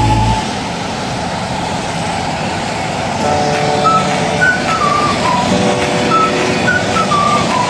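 Freight train carrying lorries and trailers on its wagons rolling past, a steady rush of wheel and rail noise. Background music comes in over it about three seconds in, with held notes and a short falling melody that repeats.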